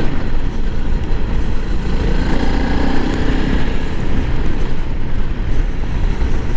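Honda CRF300L Rally's single-cylinder engine running as the motorcycle is ridden over rough dirt, with a loud, unsteady rumble.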